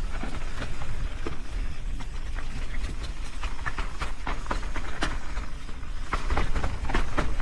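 Mountain bike riding down a dirt trail: tyres rolling and the bike's chain and frame rattling, with many irregular clicks and knocks over rough ground, over a steady low rumble.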